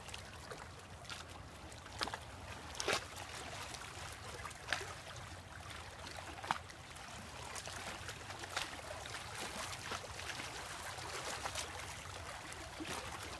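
Small waves lapping and trickling against the rocks of a seawall, quiet and steady, with scattered faint clicks and taps, the sharpest about three seconds in.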